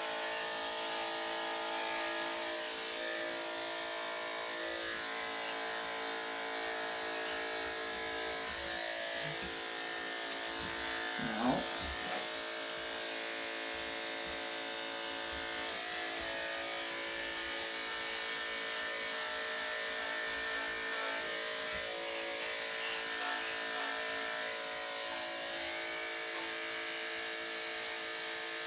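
Electric dog grooming clippers fitted with a #7 blade running steadily as they shave a dog's coat, with a brief louder sound about eleven seconds in.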